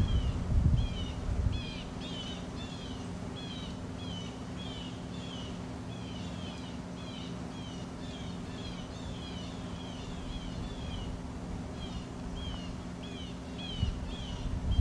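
A bird calling over and over in short slurred chirps, about two a second, over a low steady hum. A low rumble, like wind on the microphone, fills the first second or two and comes back near the end.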